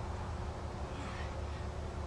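Outdoor background: a steady low rumble, with one faint, short high chirp falling in pitch about a second in.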